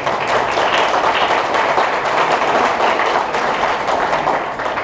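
Audience applauding: many hands clapping together, fading near the end.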